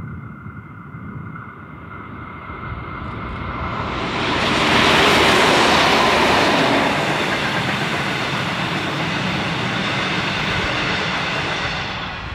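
A Clyde/EMD diesel-electric locomotive hauling a passenger train passes by. The sound builds to its loudest about five seconds in as the locomotive goes past, then the carriages roll by on the rails, and it fades near the end.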